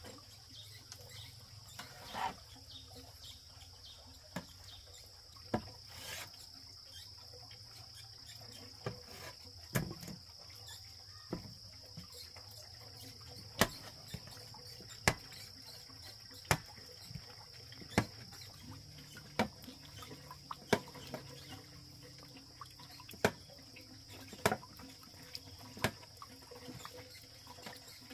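Steady high-pitched insect chirring, with sharp clicks or knocks about every one to two seconds standing out above it.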